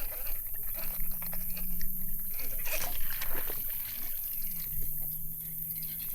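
Water lapping and trickling around a small fishing boat, with scattered small clicks and a brief rush a little under three seconds in. A steady low hum sounds twice, once near the start and again near the end.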